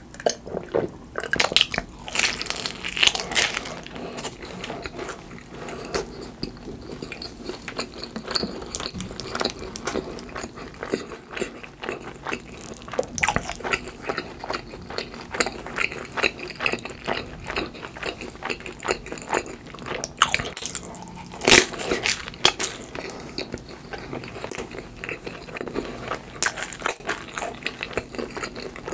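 Close-miked eating: bites into crusty cheese pizza topped with mashed avocado and wet chewing, with loud crunchy bites a couple of seconds in and again about two-thirds through.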